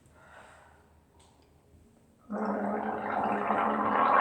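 A person gargling a throat rinse: a bubbling rattle in the throat that starts about two seconds in and goes on steadily for about two seconds.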